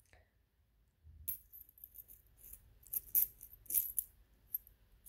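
Coins dropped one at a time onto a resting husky and the rug around it, a string of faint, light metallic clinks as they land against the coins already scattered there, starting about a second in.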